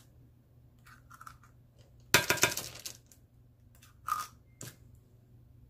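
Metal teaspoon clinking and scraping against a tin can of tomato paste: a quick run of clinks about two seconds in, with a few single clinks before and after.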